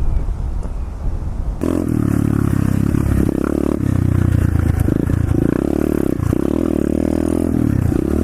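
Pit bike's single-cylinder engine running low, then revving up hard about a second and a half in and revving on and off, its pitch rising and dropping.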